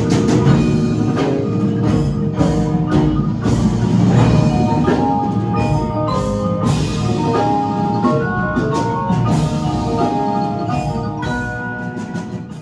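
Percussion ensemble music: marimba- and bell-like mallet notes ringing over a dense low drum layer, cutting off suddenly at the end.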